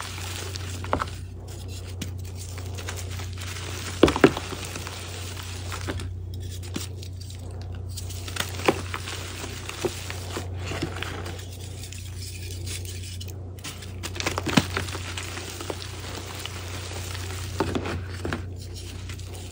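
Reformed gym chalk being crushed and crumbled by hand in a plastic tub: gritty crunching with sharp snaps as pieces break, the loudest about four seconds in and again near fifteen seconds. A steady low hum runs underneath.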